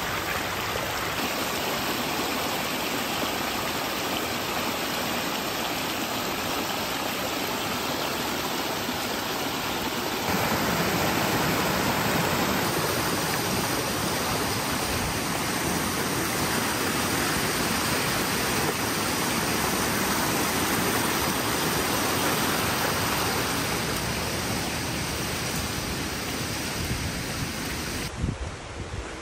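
Small mountain stream rushing and splashing over rocks, a steady watery rush that grows louder about ten seconds in.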